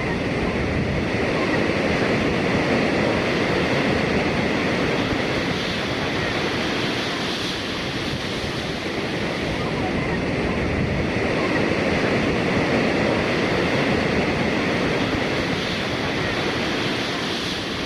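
Small waterfall and stream flowing over rocks: a steady rush of water that swells and eases slowly.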